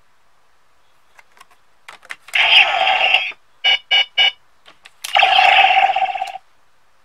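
DX Decadriver toy transformation belt reading a Kamen Ride card. A few plastic clicks as the card goes in and the buckle turns, then the belt's electronic sound effects play through its small speaker: a loud stretch of sound, three short sharp pulses, then a second loud stretch.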